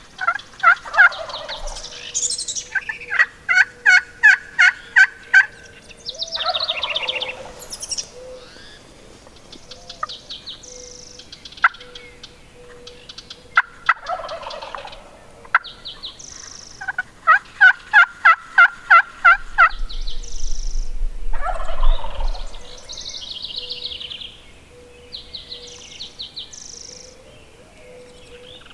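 Merriam's wild turkey gobbling, four gobbles several seconds apart, between two runs of rapid, sharp repeated notes, with songbirds chirping higher up.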